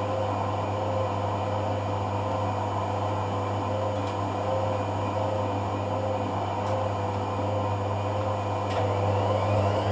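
Hoover AC166 Classica 1200 automatic washing machine running through its cotton rinse: a steady low hum with a note that pulses about every 0.7 seconds and a few faint ticks. Near the end it grows louder as the motor begins to speed up with a rising whine.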